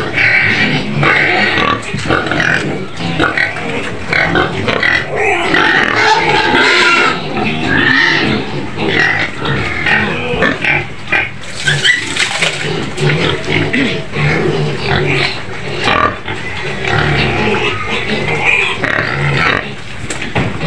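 A pen of young white pigs squealing and grunting continuously, many voices overlapping in a loud, shrill din.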